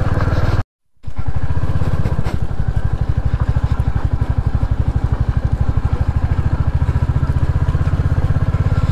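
Royal Enfield Hunter 350's single-cylinder engine running steadily under way, with a regular, even thump. The sound cuts out for a moment about a second in.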